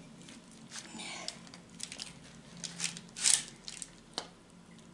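Spatula cutting through a baked casserole and scraping against the baking dish: scattered short scrapes and taps, the loudest a scrape a little over three seconds in, then a sharp click about a second later.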